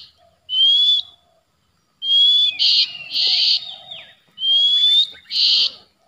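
Oriental magpie-robin (kacer) calling in three bouts: each a rising whistled note with short harsh, rasping notes, with a brief silent gap about a second in.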